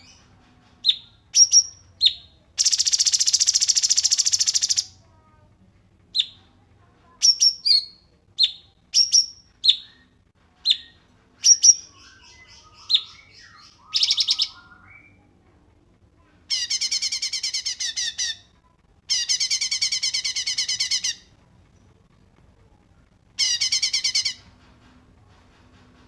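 Songbirds calling: sharp single chirps at irregular intervals, and four rapid, buzzy trills lasting one to two seconds each, near the start, and about two-thirds and three-quarters of the way through, and near the end.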